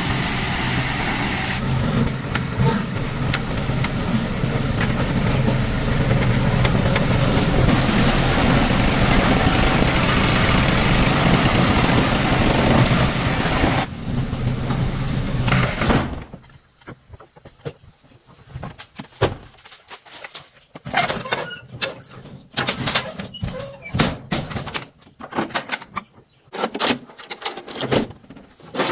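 An engine running steadily at a constant speed with a low hum, which stops abruptly about sixteen seconds in. Scattered sharp clicks and knocks follow.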